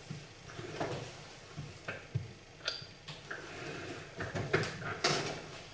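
Wooden chess pieces set down and moved on a wooden board: several sharp, separate clicks and knocks, the loudest two close together about four and a half to five seconds in.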